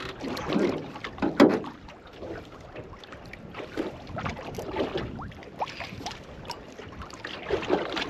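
Wind-driven waves slapping against the hull of a small aluminium boat, with wind on the microphone. Scattered clicks and knocks come through, including from a spinning reel being cranked while a fish is played on the rod.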